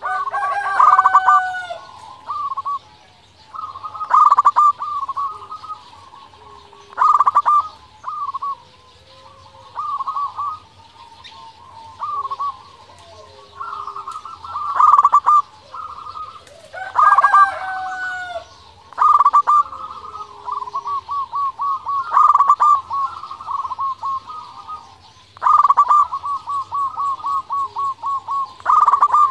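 Zebra dove (perkutut) cooing in repeated phrases every couple of seconds, several breaking into a fast run of short, evenly spaced coos near the end. Other birds call faintly in between.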